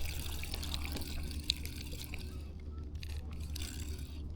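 Light water sounds at the side of a kayak: dripping and trickling, with a few small ticks.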